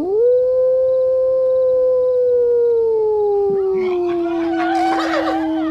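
A man's long, loud wolf-like howl that swoops up at the start, holds, then slowly sinks in pitch and carries on. From about four seconds in, horses whinny over it.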